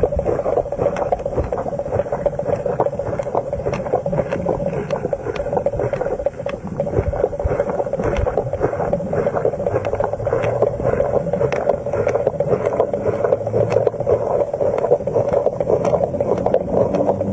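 Underwater sound: a steady hum with many irregular crackling clicks, and a low rumble that swells in the second half.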